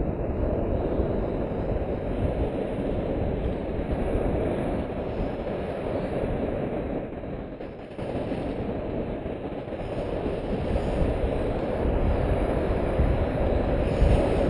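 Surf breaking and washing up the beach right at the microphone: a dense, steady rumble that dips briefly about halfway through, then builds again as the next waves come in.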